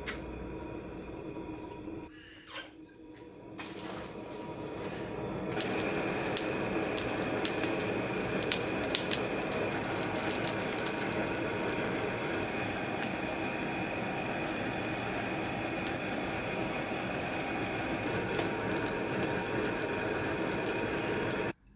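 Electric air blower feeding a charcoal forge fire: a steady blowing noise with a high whine, stepping up louder about five seconds in, with crackles and pops from the burning kindling and charcoal. It cuts off suddenly near the end.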